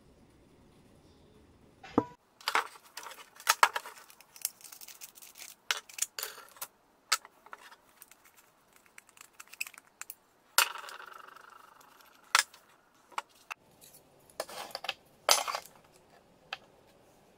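Metal parts of a Metabo angle grinder clicking, clinking and knocking as it is handled and taken apart on a wooden bench, its guard, cutting disc and flange nut coming off. The knocks are irregular, starting about two seconds in, with one longer scraping clatter about ten and a half seconds in.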